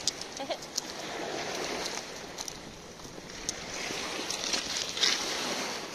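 Waves washing over a pebble beach, with scattered sharp clicks of pebbles knocking together and a louder swell of wash about five seconds in.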